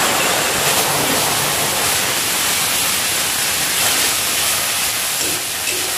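Ground tomato, ginger and green chilli paste sizzling in hot oil in a steel kadai, having just been poured in: a loud, steady hiss that eases slightly near the end.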